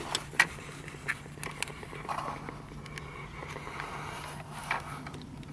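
Car engine idling with a steady low hum, with scattered light clicks and knocks.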